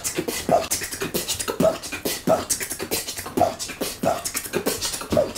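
A man beatboxing: sharp mouth clicks and short vocal blips, about two or three a second, in an uneven beat.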